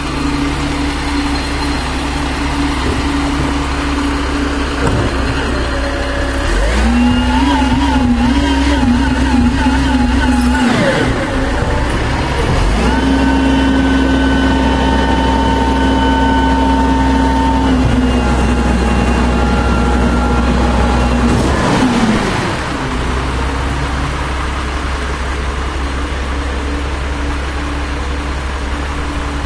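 Diesel engine of a 1996 Volvo WX64 garbage truck idling, then revving up twice: a wavering rev of about four seconds starting about six seconds in, and a steadier, longer one of about nine seconds starting around thirteen seconds in, before it drops back to idle.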